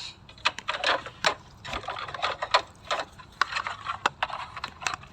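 Rapid, irregular clicks, taps and rustles of wrapped chocolates and plastic storage boxes being handled and shifted while packing them.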